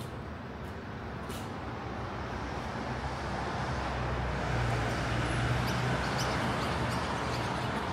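Road traffic: a steady noise with a low engine hum that grows louder from about three seconds in as a large vehicle passes close by.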